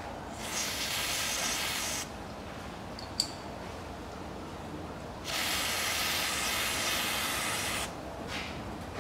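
Aerosol spray can fired through an extension straw: two hissing sprays, each two to three seconds long, with a sharp click between them.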